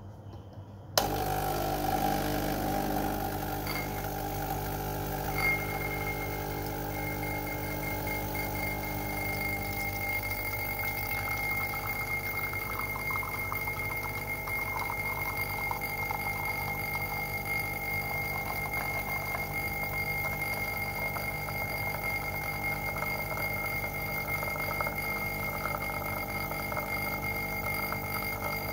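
DeLonghi EC155 espresso machine's vibratory pump switching on with a click about a second in, then buzzing steadily as it pushes water through a bottomless portafilter to pull a shot of espresso.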